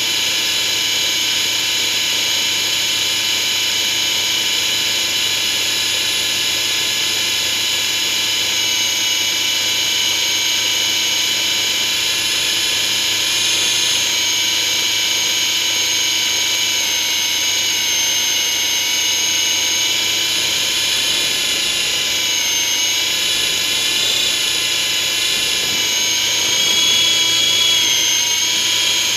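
E-sky Big Lama coaxial electric RC helicopter in flight, heard from its onboard camera: a steady high whine of its electric motors and gear train. The pitch wavers a little in the second half and it grows slightly louder near the end.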